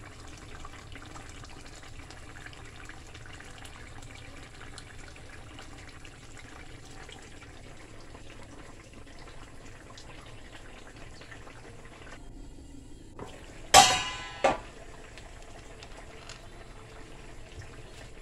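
Brown stew fish simmering in a stainless steel pan on a gas burner, a steady soft bubbling hiss. About three-quarters of the way through, two sharp metallic clanks with a brief ring, the first louder, about half a second apart.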